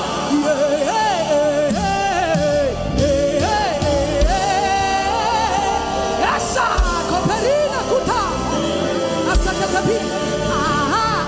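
Gospel worship music: a voice sings a gliding, ornamented melody without clear words over a sustained backing. A low drum beat falls about every two and a half seconds.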